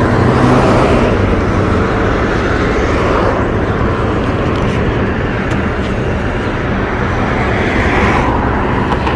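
Steady road traffic noise: cars running along the street.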